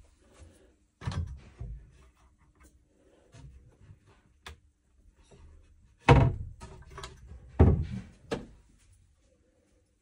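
Hinged doors of a white over-washing-machine cabinet being opened and shut by hand, giving a series of knocks and thuds. The two loudest come about six and seven and a half seconds in.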